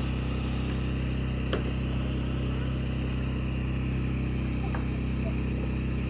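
A motor running steadily, a low even hum, with a few faint clicks or taps over it, the sharpest about one and a half seconds in.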